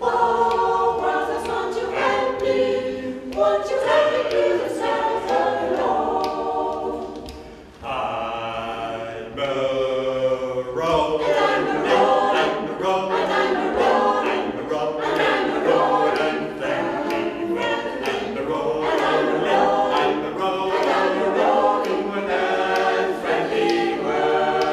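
Mixed choir of men's and women's voices singing a cappella in harmony, with a short break about eight seconds in before the singing resumes.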